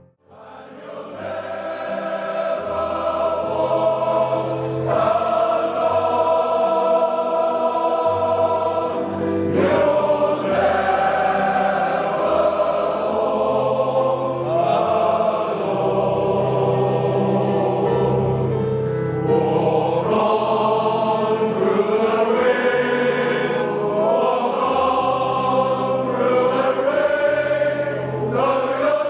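Male voice choir singing sustained chords; the sound fades in quickly from a brief drop at the very start.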